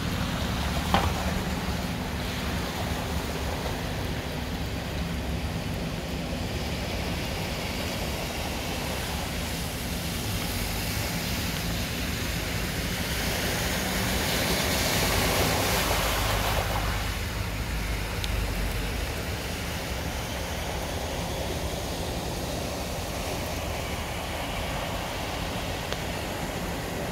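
Vehicles wading through deep floodwater on a street, their tyres pushing and splashing the water in a steady rushing noise. It swells louder about halfway through as one passes, with low engine rumble under it. There is a single sharp click about a second in.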